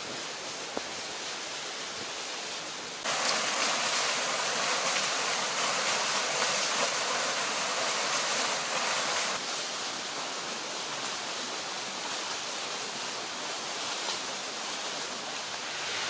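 Water rushing steadily in a mountain stream, with a small waterfall pouring off a concrete weir. The sound is loudest and brightest from about three to nine seconds in, starting and stopping abruptly.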